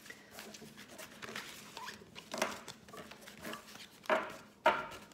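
Oracle cards being handled and shuffled: paper rustling and sliding, with a few sharper card snaps, the loudest two close together near the end.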